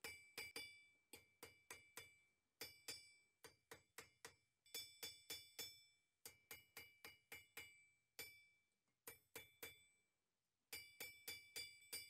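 Faint hand-hammer blows on red-hot iron on an anvil, about three a second in short runs with brief pauses, each blow leaving a bright metallic ring. The blacksmith is drawing out a lock bolt, alternating between the hammer's face and its peen.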